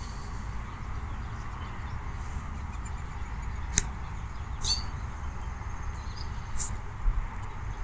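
Outdoor ambience: a steady low rumble with a faint high steady tone over it, two sharp clicks about four and six and a half seconds in, and a brief falling chirp between them.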